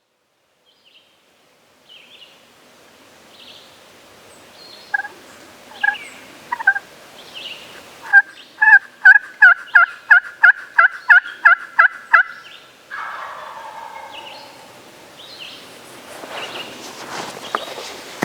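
Turkey yelping: a few separate yelps, then a steady run of about fourteen yelps at roughly three a second, which stops abruptly. Rustling comes in near the end.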